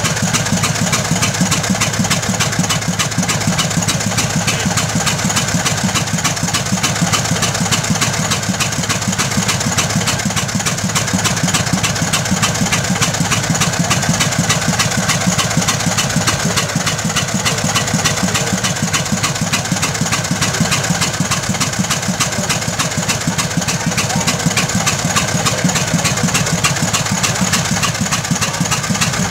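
The 16 hp gasoline engine of a 1907 Waterous horse-drawn fire engine running steadily, with a rapid even beat, while it drives the pump under load, throwing a hose stream of water.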